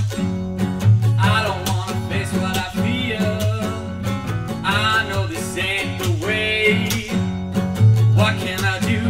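A band's recorded song: guitar over steady low bass notes and a regular drum beat, with a wavering melodic line on top.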